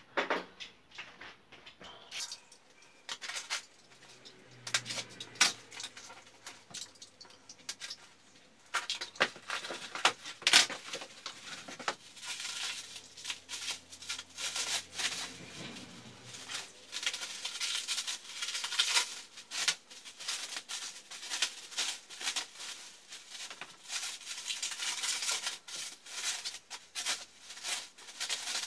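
A cardboard parcel being torn open by hand and the clear plastic wrapping pulled off its contents: irregular crinkling and rustling of plastic film and paper, busier in the second half.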